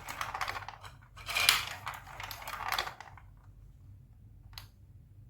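Marbles rolling and clattering through a Lego Duplo block track: a dense rattle of clicks, loudest about a second and a half in, dying away after about three seconds, then a single click near the end.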